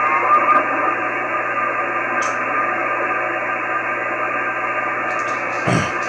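Steady hiss from an Icom IC-9700's upper-sideband receiver tuned to a linear satellite's 2-metre downlink, with faint whistling tones near the start as the tuning dial is turned. The hiss is noise that has risen on 2 metres. A short low thump comes near the end.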